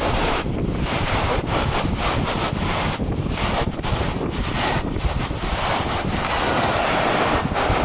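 Strong gusting wind buffeting the microphone: a loud, continuous rushing noise that swells and dips with the gusts.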